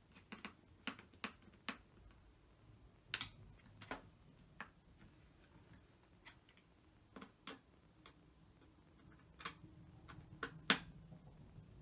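Scattered sharp clicks and light taps of a screwdriver with a T9 Torx bit driving small screws in, with the tool and parts being handled. The clicks come irregularly, a few per second at most, with the sharpest one near the end.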